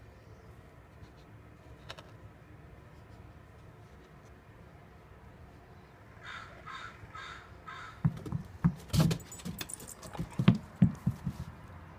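A crow caws four times, about half a second apart, a little past the middle. Then comes a run of irregular knocks and clicks: a chocolate Labrador's paws coming down wooden steps. These knocks are the loudest sound.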